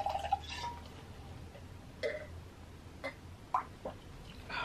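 Wine being poured into a glass, the pour ending within the first half-second, followed by a few faint, short sounds of drinking from the glass.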